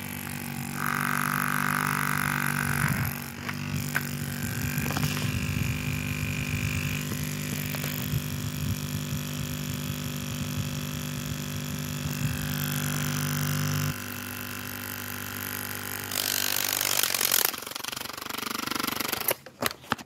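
Small battery-powered O2 Cool handheld fan running with a steady motor hum and whir. About 14 seconds in the hum changes and drops lower, a brief loud hiss follows a couple of seconds later, and a few sharp clicks come near the end.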